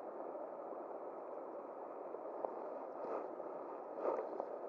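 River water flowing steadily, with two brief rustling sounds about three and four seconds in.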